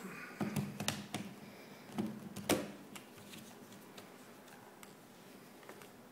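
Small plastic clicks and knocks from a Yongnuo YN-565EX speedlight being handled and fitted onto a camera's hot shoe. There are several in the first second, two more around two and a half seconds in, and the one at two and a half seconds is the loudest.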